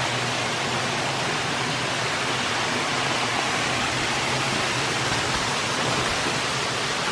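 Steady, full rushing roar of a big waterfall pouring over a bluff, with no breaks or changes.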